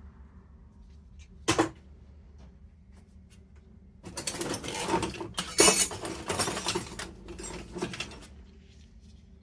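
Metal hand tools being handled and rummaged: one sharp clank about one and a half seconds in, then about four seconds of clattering and rattling.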